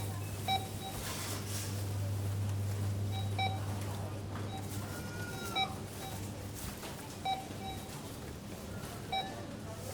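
Supermarket checkout ambience: barcode scanner beeps, five short beeps a couple of seconds apart, over a low steady hum that fades about halfway through and a general background bustle.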